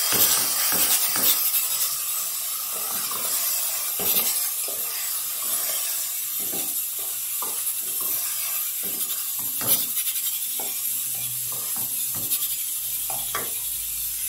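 Washed rice frying with garlic in an aluminium pan, sizzling steadily, while a wooden spoon stirs and scrapes it with irregular knocks against the pan.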